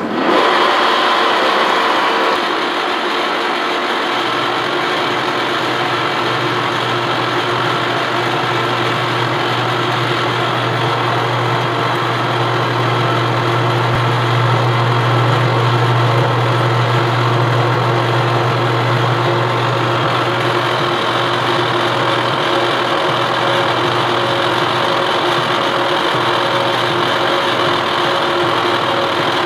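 Horizontal boring mill driving an 8-inch face mill through a cut on a steel angle plate, a steady machining noise with a low hum that strengthens through the middle of the pass. The spindle has been slowed to keep down the chatter it had at higher speed, and the cut is taking out a hump in the middle of the plate.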